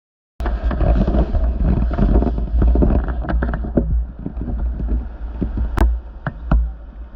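Water and wind buffeting a GoPro surfing camera: a deep, muffled rumble with scattered knocks, starting abruptly just after the beginning.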